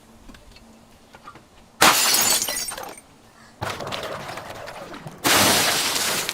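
Glass shattering three times, each a sudden loud crash that trails off over a second or so, the last two coming close together.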